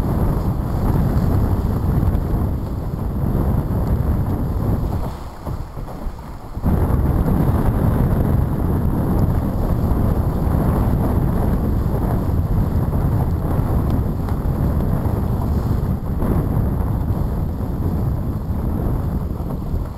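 Heavy wind buffeting the microphone over water rushing and splashing along the hull of a HOOT sailing dinghy moving fast through choppy water. The noise drops for about a second and a half around five seconds in, then comes back suddenly.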